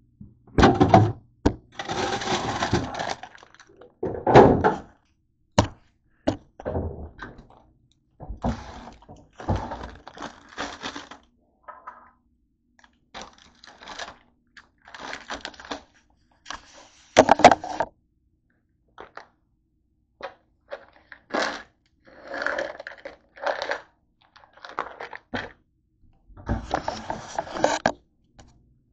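Irregular thunks, knocks and rustling as food items and containers are handled, taken from refrigerator shelves and set down on a desk. The sharpest knocks come about four seconds in and again past the middle.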